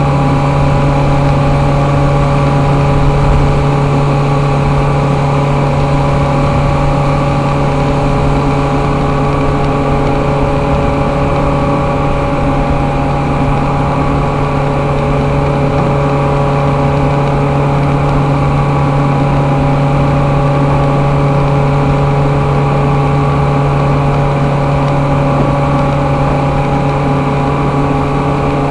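Loud, steady drone of running industrial machinery: a constant low hum with several steady higher tones above it, unchanging throughout.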